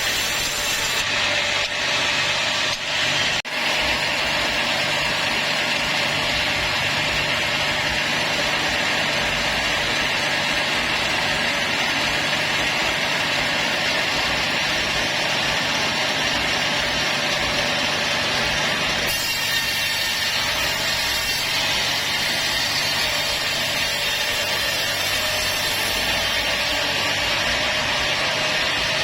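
Sawmill saw cutting a teak log: a steady, loud cutting noise with the machine's motor humming underneath, briefly dipping about three seconds in.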